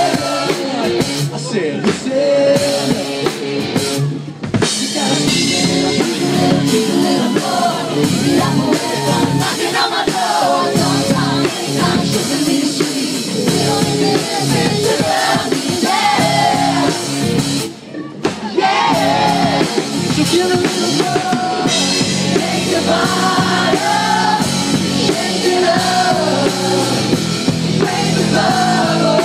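A live rock cover band playing loudly: drum kit, electric guitar and a lead singer. The music drops out for a moment about four seconds in, and again for about half a second around eighteen seconds.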